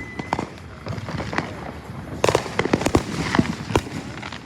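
Consumer fireworks going off: a string of sharp bangs and crackling pops, a few scattered early and a dense cluster from about two to four seconds in.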